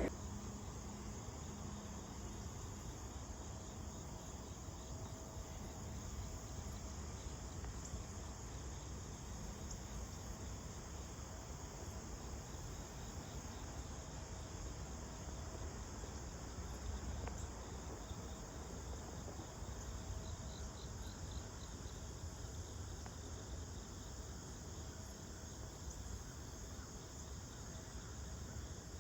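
Crickets chirping steadily, with a short run of quick chirps about twenty seconds in, over a faint low rumble.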